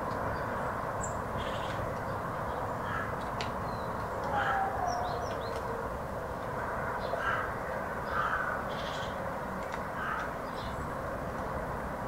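Crows cawing several times, with small birds chirping high and brief, over a steady low background hiss.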